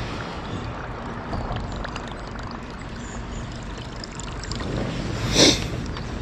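Steady rush of moving water from the dam's release. Near the end a short, loud sound falls sharply in pitch.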